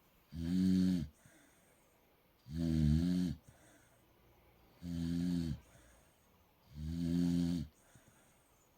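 A dog snoring: four loud, pitched snores about a second long, one every two seconds or so, which sound like a pig.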